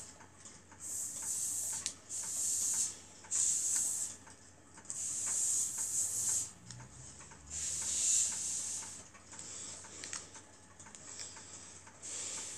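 Battery-operated lucky cat (maneki-neko) figure waving its paw, its mechanism ticking steadily about two to three times a second. Irregular louder bursts of high hiss, each about a second long, come and go over the ticking.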